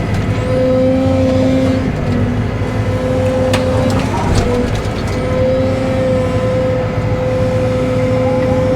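Cat 313 excavator running under work: a steady engine drone with a whine that comes and goes in stretches as the hydraulics are worked. A couple of short knocks come a few seconds in.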